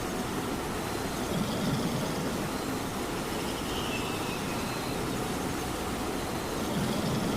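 Steady rain with a cat snoring over it: two low snores swell up, one about a second and a half in and one near the end.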